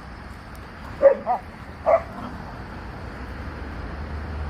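A dog giving three short, high yipping barks in quick succession about a second in, typical of play barking. A steady low rumble runs underneath.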